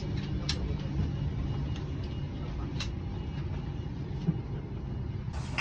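Steady low rumble of a Boeing 737-800's cabin at the gate, with a few faint clicks and knocks.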